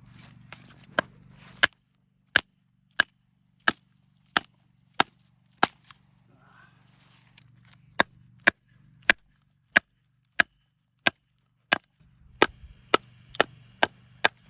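Repeated sharp chopping strikes, about one every two-thirds of a second, with a pause of about two seconds midway before they resume.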